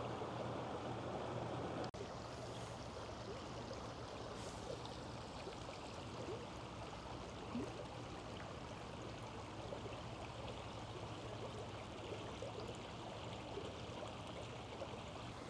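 Shallow creek water running over rocks: a steady, fairly quiet rush, dropping slightly in level about two seconds in.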